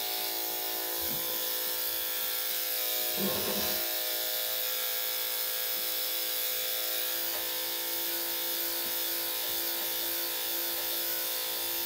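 Electric dog clippers fitted with a number 10 blade running with a steady buzz while shaving a Yorkshire Terrier's coat close around its rear.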